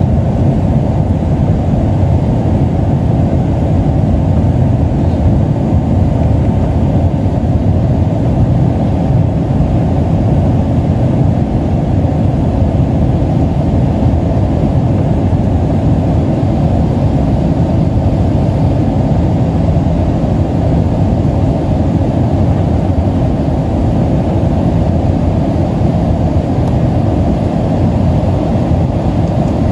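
Steady low rumble of a Boeing 767-375ER's jet engines and rushing air, heard inside the cabin beside the wing during the climb after takeoff.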